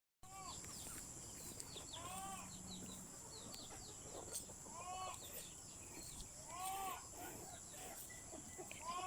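Farm animals calling in a string of short rising-and-falling calls, several overlapping, over a steady high-pitched insect buzz.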